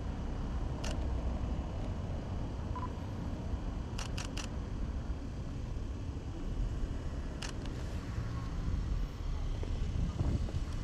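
Camera shutter firing over a steady low street rumble: one click about a second in, a quick burst of three around four seconds in, and a single click about seven and a half seconds in.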